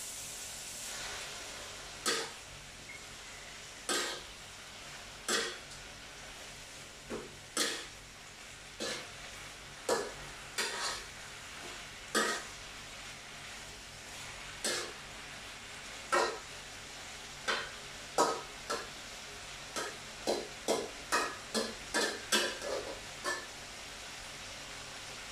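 Metal spatula knocking and scraping against a frying pan while tofu fries, over a faint steady hiss. The knocks come every second or two, then in a quicker run of about two or three a second near the end.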